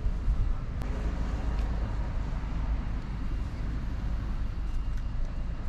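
Steady low outdoor background rumble, with a faint click about a second in.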